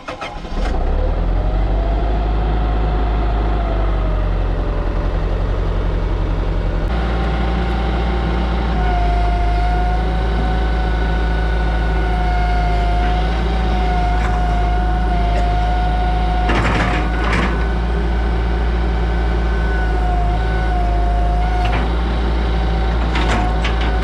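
Hitachi EX120-5 excavator's diesel engine catching about half a second in and then running steadily, changing speed after about seven seconds. A wavering whine rides on it as the boom and arm are worked, with a few short clunks in the second half.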